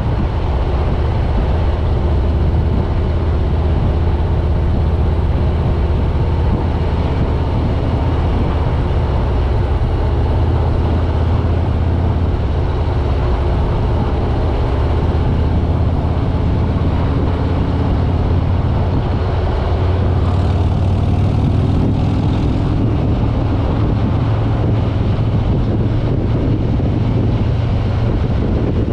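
Harley-Davidson Road King's V-twin engine running under way on the road: a steady low rumble.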